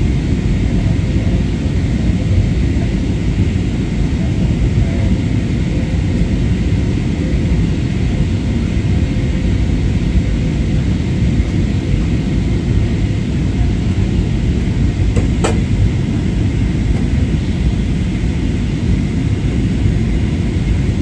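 Steady low rumble of a jet airliner's engines and airflow, heard from inside the passenger cabin. There is a short double click about fifteen seconds in.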